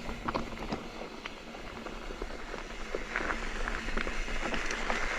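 Mountain bike rolling over a rocky, gravelly trail: tyres crunching, with many small clicks and rattles. The ride noise grows louder and hissier about three seconds in.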